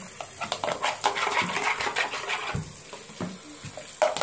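Tap water running into a plastic bowl as it is rinsed out, with a metal spoon scraping and clicking irregularly against the bowl.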